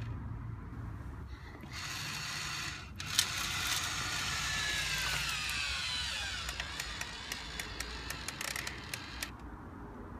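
Remote-controlled Dickie Toys Mega Crane's electric winch motor and gears whirring and clicking as it hoists a plastic pipe on its chains. A sharp knock comes about three seconds in, then a whine that falls in pitch, and a run of rapid clicks near the end.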